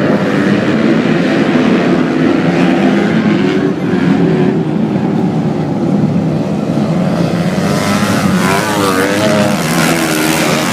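Flat-track racing motorcycles running in a race. From about eight seconds in, nearer engines rise above the rest, their pitch wavering up and down.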